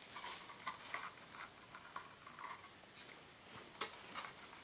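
Faint handling noise of a fiberglass model-aircraft cowl turned in the hands and wiped with a paper towel: scattered light clicks, taps and rustles, with one sharper tap late on.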